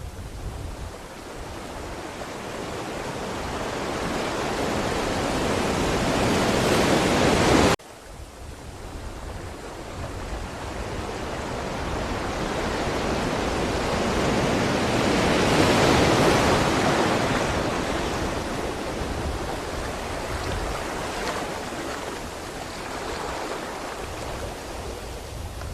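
Ocean waves surging onto a shore. One wave builds and cuts off suddenly about eight seconds in; a second wave swells to a peak past the middle and slowly washes out.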